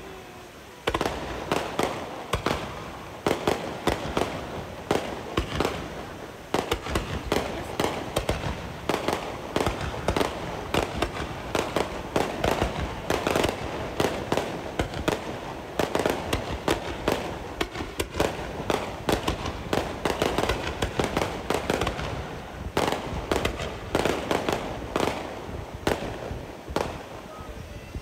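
Fireworks display: a dense, continuous barrage of bangs and crackling from aerial shells bursting and ground fountains spraying sparks. It starts about a second in after a brief lull.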